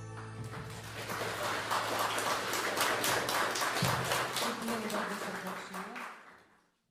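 The song's last accompaniment chord dies away and an audience breaks into applause, a dense even patter of clapping, with a voice briefly heard under it near the end before it fades out.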